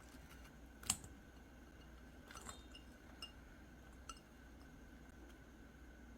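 Quiet room tone with a few scattered light clicks and taps, the sharpest about a second in, and a brief soft scrape about two and a half seconds in.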